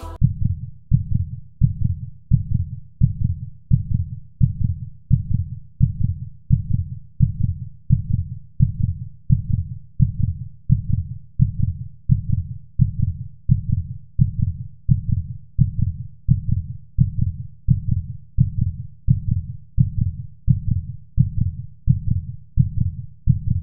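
A steady run of low, heartbeat-like thumps, evenly spaced at about three every two seconds.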